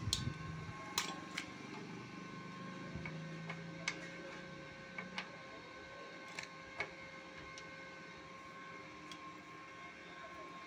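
Inverter arc welding machine idling with a steady faint whine made of several fixed tones, not striking an arc. Scattered sharp clicks and knocks from handling the cables and the switchboard run through it.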